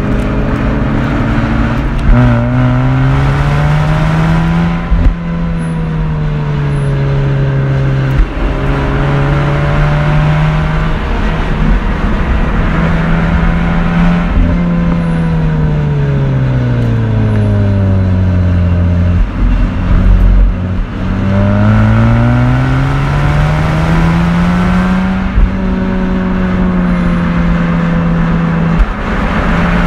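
Mazda RX-8's naturally aspirated twin-rotor Renesis engine and exhaust running under load, its note rising and falling with the revs through the bends. It climbs early on and drops to its lowest about two-thirds of the way through, then climbs again and holds high near the end.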